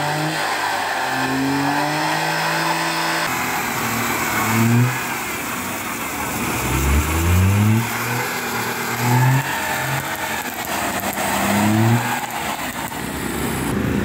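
Daihatsu Sigra's engine revved hard again and again, each rev rising in pitch, over a steady hiss, as its wheels spin without grip on a slippery wet uphill road.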